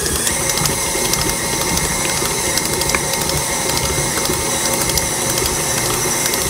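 KitchenAid stand mixer running steadily at medium-high speed, its motor and gears whirring with a fast ticking rattle as the beater works a thick, sticky gum-paste mix of powdered sugar and liquid.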